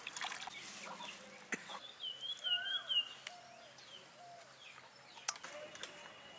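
Water pouring into a metal bowl, then about two seconds in a chicken clucking in a quick run of short up-and-down notes.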